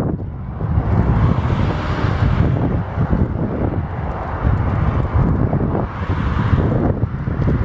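Wind buffeting the microphone of a camera on a moving bicycle as a steady low rumble, with cars swelling past twice, about two seconds in and again about six seconds in.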